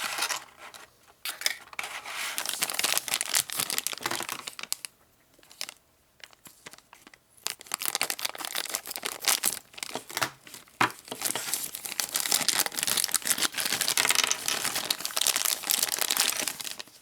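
Plastic packaging crinkling and tearing as it is handled and opened. The crackling stops for about three seconds partway through, then starts again.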